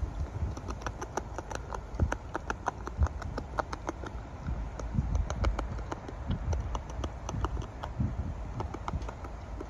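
Beaver chewing leaves and a green stem held in its front paws: quick, irregular, crisp crunching clicks, several a second, with a few heavier thumps.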